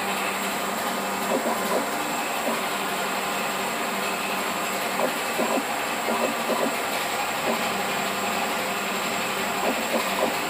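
Automatic paint tinting machine dispensing colorant into a can of wall paint: a steady mechanical whirr of its pumps with a few faint clicks.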